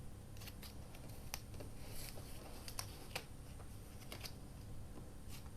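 A string of irregular light clicks and taps from paper pieces and craft tools being handled on a desk, over a faint steady low hum.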